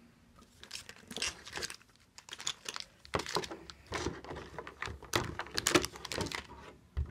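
Clear plastic blister packaging crinkling and crackling in an irregular run as it is handled and booster packs are worked out of it, with a dull knock near the end.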